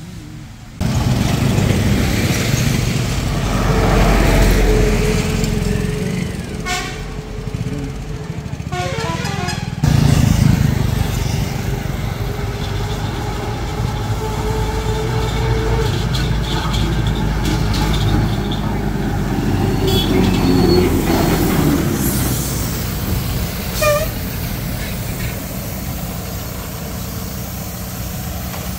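Highway traffic: heavy diesel vehicles and motorcycles running and passing, with a vehicle horn tooting now and then.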